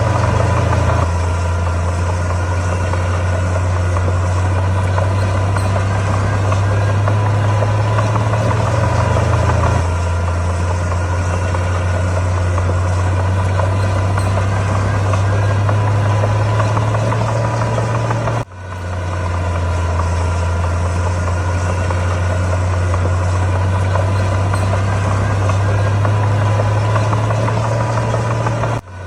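Heavy diesel engine of earthmoving machinery running steadily with a low drone that shifts pitch slightly a few times. The sound dips briefly about two-thirds of the way through and again near the end.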